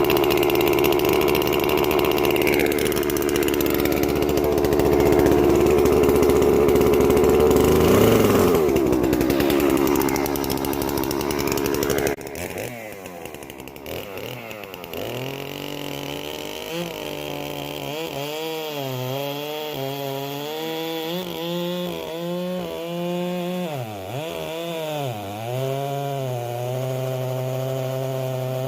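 Gasoline-powered saw running hard while cutting a large walnut log. About twelve seconds in, the level drops sharply to a quieter engine note whose pitch dips and recovers several times as the blade takes load.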